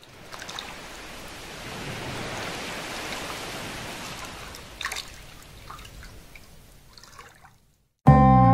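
Water trickling, with a few scattered drips, swelling over the first few seconds and then fading out. Music with guitar starts abruptly near the end.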